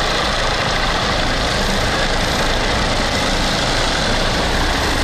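Helicopter hovering low overhead: steady, loud rotor and turbine noise.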